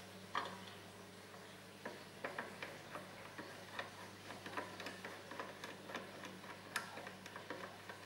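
Light, irregular clicks and taps from hands handling a clear plastic air tube against the metal arm of a scroll saw.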